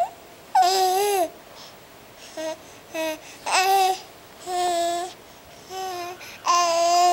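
Baby babbling: a string of about seven short high-pitched voice sounds separated by brief pauses, some cut short, others held at an even pitch for half a second or more.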